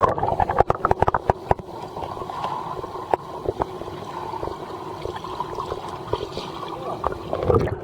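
Rushing, gurgling river water, with a quick run of knocks and clicks in the first second and a half.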